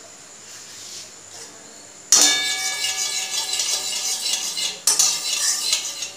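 Metal spatula scraping around the inside of an aluminium kadai holding a little oil: a harsh metallic scrape with a faint ring, starting suddenly about two seconds in, breaking off briefly near five seconds, then stopping just before the end.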